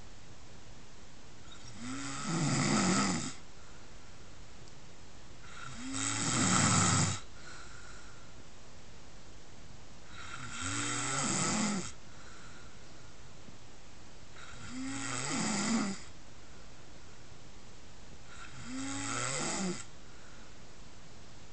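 A pig snoring: five snores about four seconds apart, each lasting a second or so and swelling in loudness before it breaks off.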